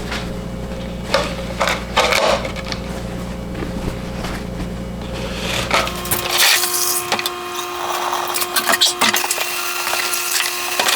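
Clicks and scraping from hand work with tools and parts, over a steady low machine hum that stops about six and a half seconds in.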